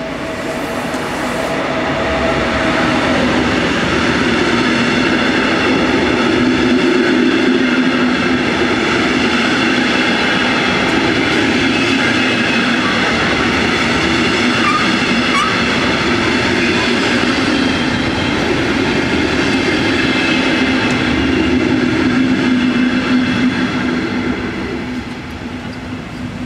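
Electric locomotive hauling double-deck passenger coaches passing over a level crossing: a loud, steady rumble of wheels on rail. It builds over the first couple of seconds and fades near the end as the last coach clears the crossing.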